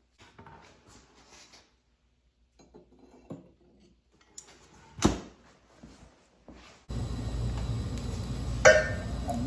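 Light clinks of metal being handled, with a sharp metallic clack about five seconds in. About seven seconds in, a machine starts running with a steady hum and a high thin whine, and a ringing metal clang sounds over it near the end.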